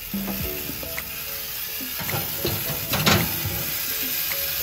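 Background music over a steady hiss, with one loud clunk about three seconds in as the wind-up rotisserie holding the chicken is set into the oven.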